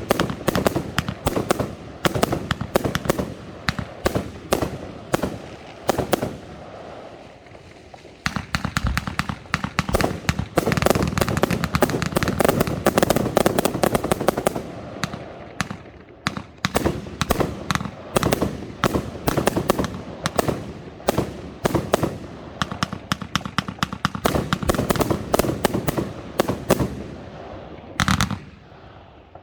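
Large category F4 fireworks display: rapid, dense bangs and crackling, with a short lull about seven seconds in and a stretch of continuous heavy crackle around the middle.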